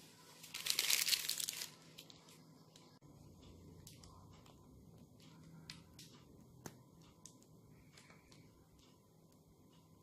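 Plastic piping bag crinkling loudly for about a second and a half near the start as it is handled and squeezed, followed by a few faint light clicks.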